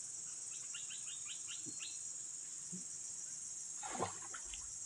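Steady high-pitched drone of insects, with a quick run of about seven bird chirps, around five a second, early in the first two seconds, and a brief thump near four seconds.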